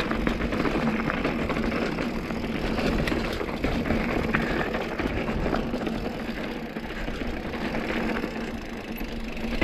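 A mountain bike rolling over rough rocky trail: continuous tyre noise on rock and dirt, with many small rattles and knocks from the bike.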